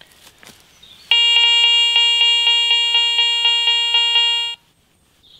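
Garrett ACE 400i metal detector giving its target tone with a fast, regular pulse as a small silver coin passes within range of its stock search coil. The tone starts about a second in, runs for about three and a half seconds, cuts off, and starts again at the very end.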